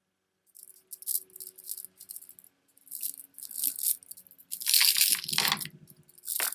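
Hands handling beaded stone and glass jewelry: a run of rattling and rustling bursts, loudest about five seconds in.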